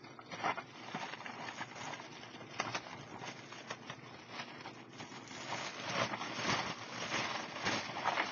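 Thin clear plastic bag crinkling and rustling as it is handled and pulled open, with small crackles throughout. It gets louder about two thirds of the way through.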